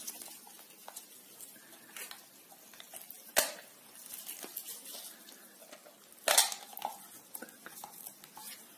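Plastic clicks and clacks from a round self-inking stamp being handled to release its ink pad for re-inking. There is a sharp click about three and a half seconds in and a louder clack a little after six seconds, with lighter clicks around them.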